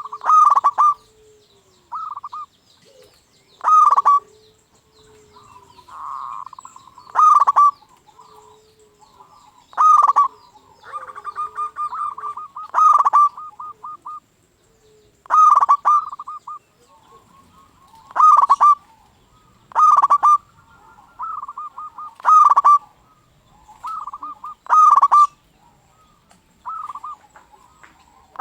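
Local zebra dove (perkutut) cooing its song over and over. Each loud phrase is a short, rhythmic, stuttering coo, and the phrases come about every two to three seconds, with softer coos between them.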